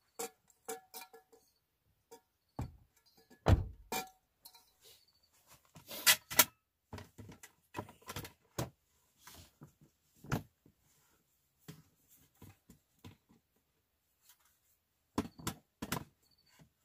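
Irregular knocks, clicks and thumps of camping gear being handled, including a portable camp stove and its pot. The loudest is a heavy thump about three and a half seconds in, with sharp clicks a few seconds later.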